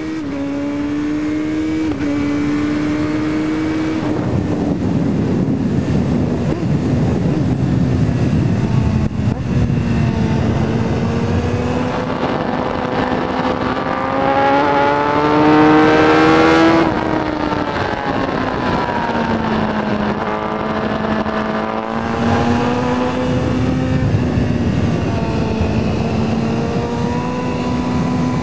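BMW S1000RR's inline-four engine pulling hard through the gears: the pitch climbs and steps down at each upshift. About two-thirds of the way through, the throttle shuts and the revs fall away, then the engine pulls again.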